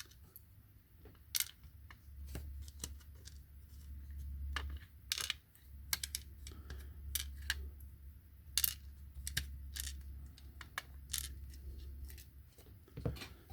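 Irregular small metallic clicks and taps from a padlock's removed lock core being handled and its pin tumblers and springs worked out, over a low steady hum.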